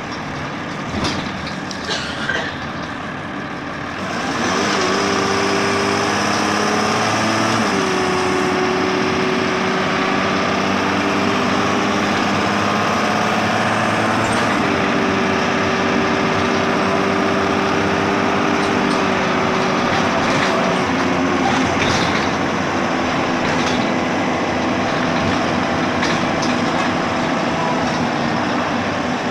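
Inside a Dennis Dart bus with Alexander ALX200 body: the engine and drivetrain are heard through the cabin, quieter with a few clicks and knocks at first. About four seconds in it gets louder as the bus pulls away, and a drivetrain whine changes pitch several times as it goes on.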